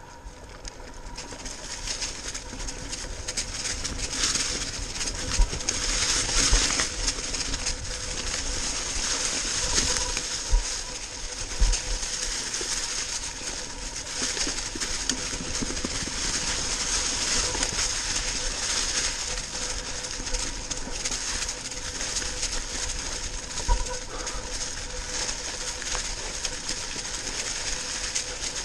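Mountain bike tyres rolling over dry fallen leaves on a dirt trail, a steady crunching hiss, with a few thumps as the bike hits bumps.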